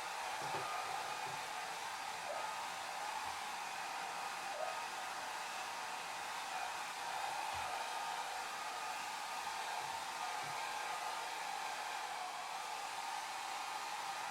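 Hair dryer running steadily: an even rush of blown air with a faint motor whine, mostly hiss with little low rumble.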